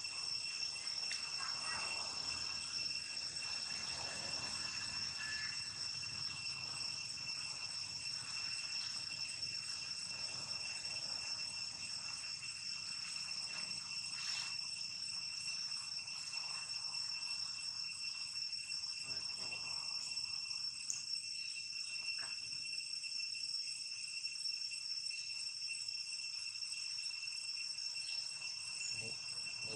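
Steady, high-pitched insect chorus: a continuous shrill drone held at a few fixed pitches, unbroken throughout.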